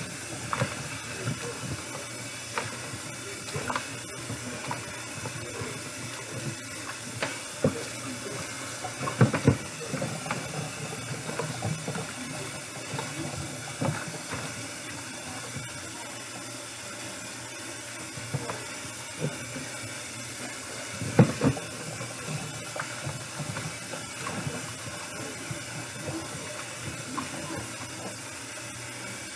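Kitchen tap running steadily into a bowl of raw chicken drumsticks as they are rinsed and rubbed by hand, with scattered splashes and knocks of the pieces against the bowl, a few louder knocks about nine seconds in and again past twenty seconds.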